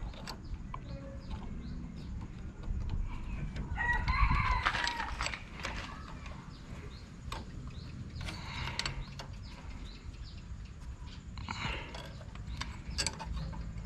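A rooster crows once, about four seconds in. Scattered short clicks and taps sound throughout, with a few more calls or rustles later on.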